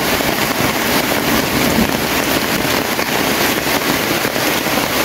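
Steady heavy rain falling.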